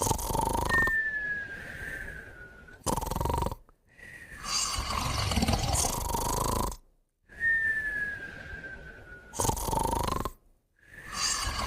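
Sleeping puppy and companion snoring together: slow, rasping snores repeat every few seconds, and twice a thin whistle on the breath slides slowly down in pitch for about a second and a half.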